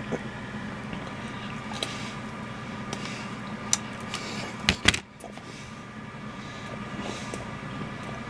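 Chocolate bar wrapper handled and opened, giving a few sharp crackles about four and five seconds in, over a steady background hum.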